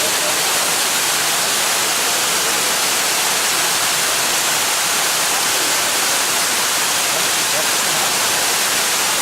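Waterfall: a steady, loud rush of falling water, unbroken and even throughout.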